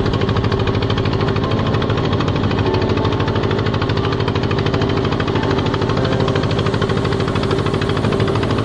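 Inboard engine of a small wooden fishing boat running steadily, with a rapid, even beat.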